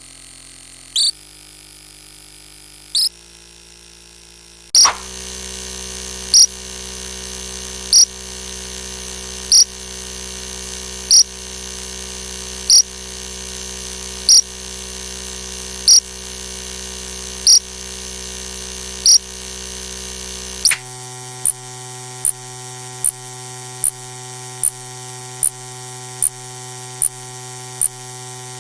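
Synthesized electronic sound effects: a steady drone of several held tones, which switches to a new, denser set of tones about five seconds in and again about twenty seconds in. Over it a short high beep repeats, about every two seconds at first, then every second and a half, then roughly every 0.8 seconds near the end.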